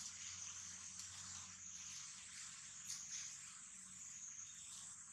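Faint, steady high-pitched drone of insects, wavering slightly in pitch.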